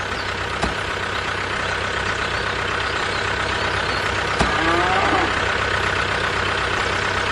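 Truck engine running steadily, with a short run of chirping glides about four and a half seconds in.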